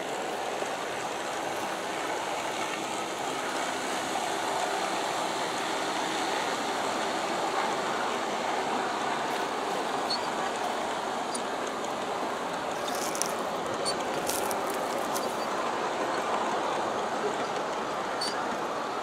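G-scale model passenger train running along its track: a steady rolling rumble of the wheels on the rails as the cars pass. A few light clicks come about two-thirds of the way through.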